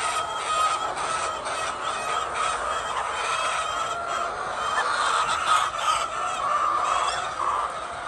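A large flock of white laying hens clucking and calling all at once, a steady din of many overlapping calls.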